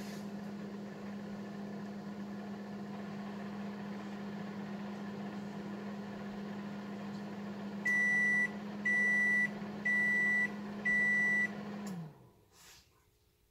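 An appliance's motor running with a steady hum, then four loud, high electronic beeps about a second apart; just after the last beep the hum winds down in pitch and stops.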